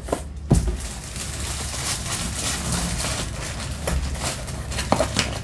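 Handling noise of a rolled diamond-painting canvas being packed back into its cardboard kit box: steady rustling with a sharp knock about half a second in and a few lighter knocks near the end.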